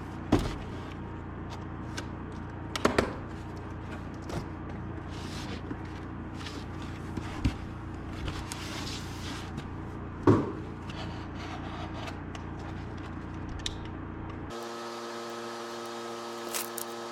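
Scattered knocks, scrapes and rubbing from building materials being handled, over a low steady background. About fourteen and a half seconds in, the sound changes suddenly to a steady hum made of several even tones.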